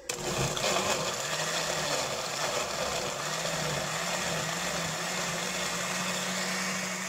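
Countertop blender running at speed, puréeing whole raw tomatoes, onion, dried chiles and garlic into a salsa. It is a steady motor whir with the churn of the contents, and the motor's pitch climbs slightly as it goes on.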